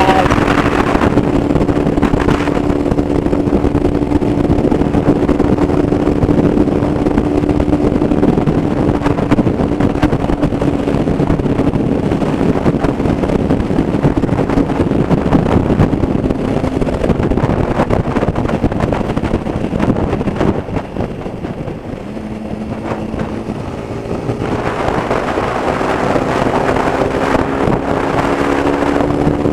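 Motorcycle engine running steadily at road speed with heavy wind rush on the microphone. About twenty seconds in the engine note drops and eases off, then climbs steadily again as the bike accelerates.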